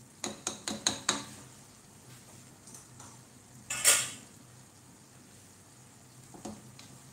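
A spoon knocking and scraping against the inside of a metal cooking pot while stirring chicken and bell peppers: a quick run of about five clinks in the first second, one louder ringing clang about four seconds in, and a faint knock near the end.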